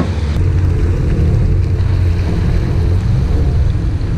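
Yamaha WaveRunner jet ski running steadily under way, its engine drone mixed with wind buffeting the microphone and water rushing past the hull.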